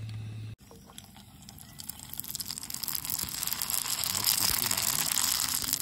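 Puris frying in hot oil in a kadai, sizzling with small crackles and growing louder from about two seconds in. A steady low hum cuts off about half a second in.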